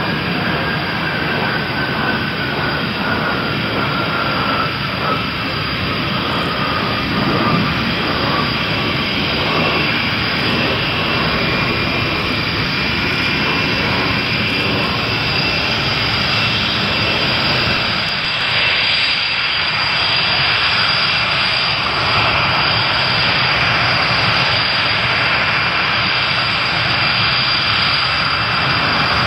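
The two Turbo-Union RB199 turbofans of a Panavia Tornado IDS running at taxi power, a loud, steady jet whine. A high tone in the whine falls in pitch over the first ten seconds or so.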